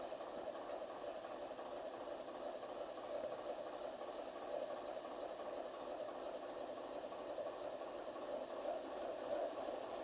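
ChME3 diesel shunting locomotive's engine idling steadily at a distance.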